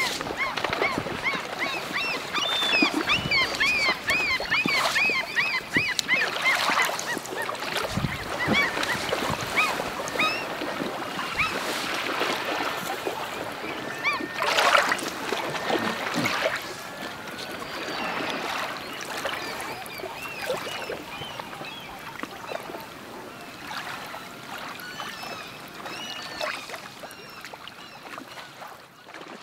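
A chorus of many birds calling, in short rising chirps that are densest in the first half and thin out later. There is a louder noisy burst about halfway through, and the sound fades away near the end.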